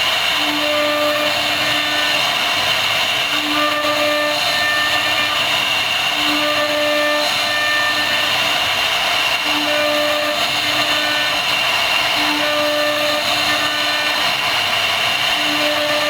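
CNC router spindle running steadily with a high whine as it carves a wooden panel. Short pitched hums come back every two to three seconds.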